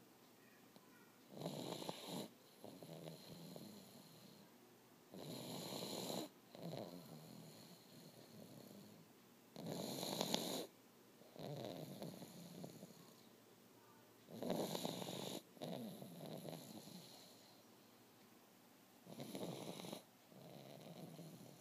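A pug snoring: a loud snore about every four to five seconds, five in all, each followed by a softer, longer breath sound.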